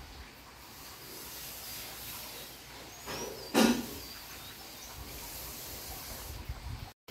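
Outdoor ambience: a steady rushing hiss with a few high chirps about three seconds in, and one loud short thump about three and a half seconds in. The sound cuts out abruptly just before the end.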